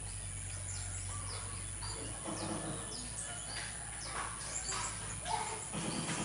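Blue-crowned hanging parrots calling: short, high notes that slide downward, repeated many times at irregular intervals.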